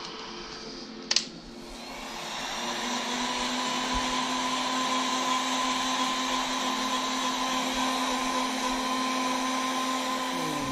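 Electric heat gun switched on with a click about a second in, its fan spinning up to a steady blowing hum with a faint whine as it blows hot air to heat-set airbrushed paint, easing off right at the end.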